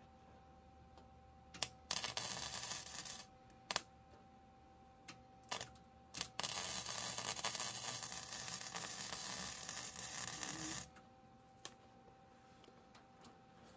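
Arc welding tack welds on a rusty steel tub: a short spell of crackling arc about two seconds in, a few brief pops, then a longer weld of about four seconds starting some six seconds in. A faint steady hum fills the gaps between welds.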